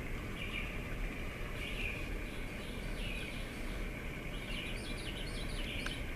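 Recorded birdsong, a run of quick chirps and trills, played as the wake-up alarm sound from the Soleil Sleep Spa alarm clock's speaker over a steady hiss.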